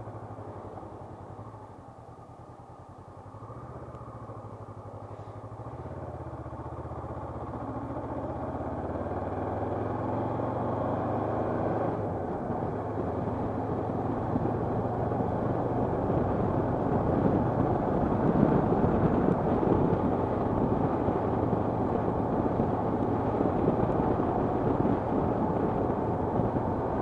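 Motorcycle engine pulling away and accelerating, its note stepping through several gear changes, with wind rush on the microphone growing steadily louder as speed rises.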